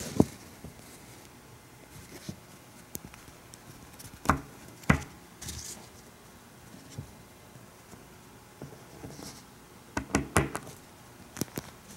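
Small plastic parts of a Nendoroid Pikachu figure clicking and tapping under the fingers as its head is pulled off the neck peg and another face is pressed on. Sharp clicks come singly about four and five seconds in, with a quick cluster near the end.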